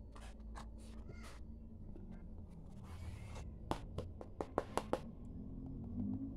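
Hands handling a stiff sand-art card: a few soft taps, a brief rustle of the card sliding, then a quick run of sharp clicks and taps as it is lifted and held.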